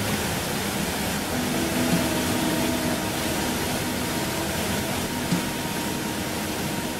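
Steady rushing of a small waterfall's churning water, with faint, slowly changing held music notes over it.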